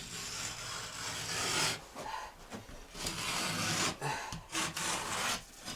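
A knife scoring a sheet of drywall (gypsum board): about three long scraping strokes across the board.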